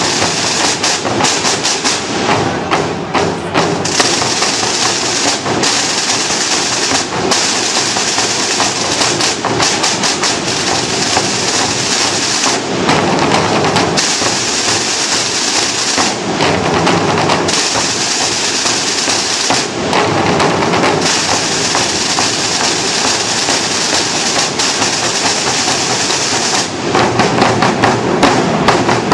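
Massed drum corps of snare drums and bass drums playing together: sustained snare rolls, broken in places by runs of separate sharp strokes, with a louder passage of quick strokes near the end.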